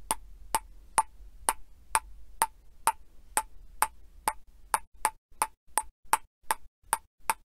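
Intro sound effect: a sharp, wood-block-like tick repeated evenly about twice a second, each tick short with a ringing note in it.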